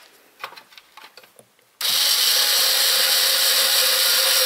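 A few light handling clicks, then about two seconds in a cordless screwdriver starts and runs steadily, driving a fine-thread screw through the mixer's plastic base into its metal housing.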